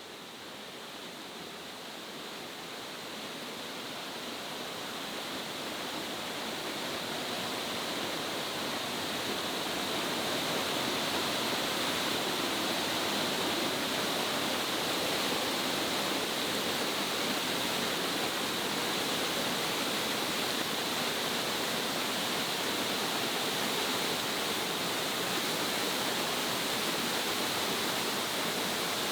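Waterfall: a steady rush of falling water, growing louder over the first ten seconds or so and then holding even.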